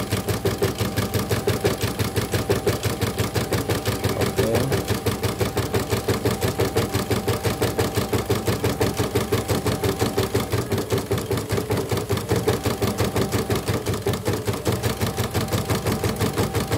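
CNY portable embroidery machine stitching a design, its needle bar working up and down in a fast, even rhythm of strokes, on a test run after a repair to the presser foot.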